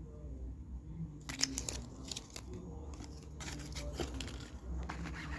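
Plastic fidget cube being handled and clicked: a run of small sharp clicks and crackles starting about a second in, over a steady low hum.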